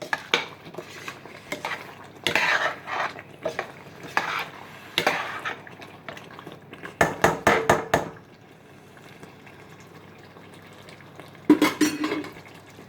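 A spoon stirring chicken into a pot of stew, scraping and clinking against the pot. About seven seconds in comes a quick run of sharp knocks, and near the end a single loud clatter.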